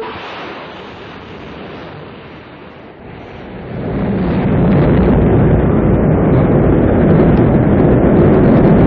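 Rocket launch sound: a sudden hiss at the start, then about three and a half seconds in the deep rumble of engine ignition builds quickly to a loud, steady rumble.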